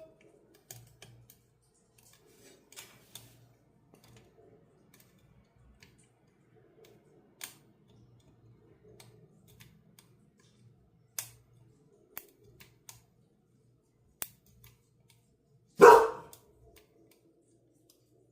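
Faint, scattered metallic clicks of a half-diamond pick working the pins of a brass Abus EC75 dimple padlock. Near the end a dog barks loudly.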